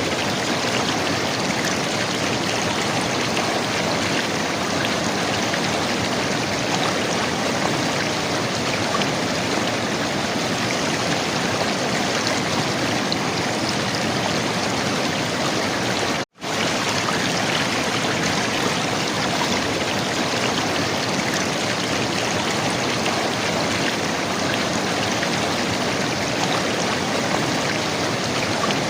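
River water flowing and gurgling in a steady rush. It cuts out for an instant just past halfway, then carries on unchanged.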